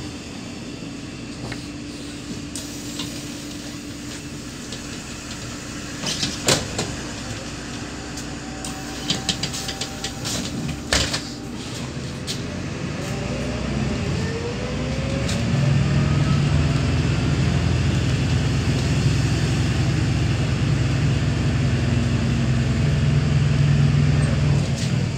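Inside a Neoplan K4016td city bus: the MAN D0826LOH17 diesel idles with a low steady hum while a few sharp clicks and knocks sound. Roughly halfway through the bus pulls away, and the engine and ZF 5HP500 automatic gearbox give a rising whine, then run loud and steady under acceleration.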